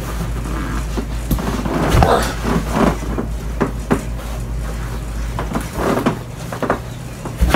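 Scattered knocks and bumps of things being handled, over a steady low hum; the knocks come thickest about two to four seconds in and again near six seconds.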